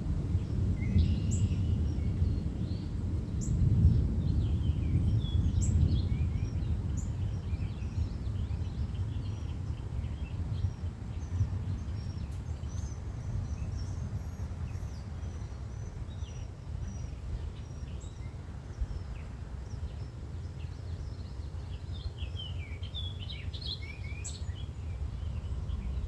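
Several birds chirping and calling in short notes throughout, over a low, uneven rumble that is loudest in the first few seconds and then eases off.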